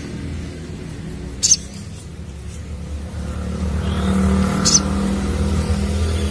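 A sogon sunbird gives two short, sharp, high chirps, about three seconds apart. Under them a motor vehicle engine runs steadily and grows louder in the second half.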